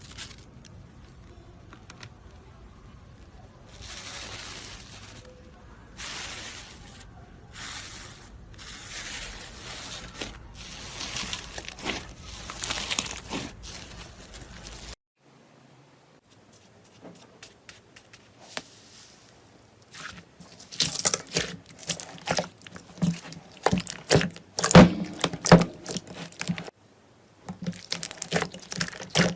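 Slime being worked by hand: soft squishing and stretching sounds, then, after a sudden change halfway through, rapid sharp crackling and popping that is the loudest part.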